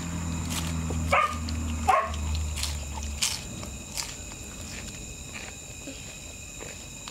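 A dog barks twice in quick succession, each bark short and falling in pitch, over a low steady hum that cuts off about three seconds in. Sharp crunches of people biting into crispy fried chicken tenders and spring rolls are scattered throughout.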